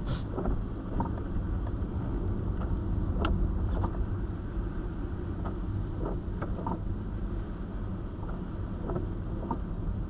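Steady low road and engine rumble inside a moving car's cabin on a wet road, with scattered light ticks. A windshield wiper sweep right at the start.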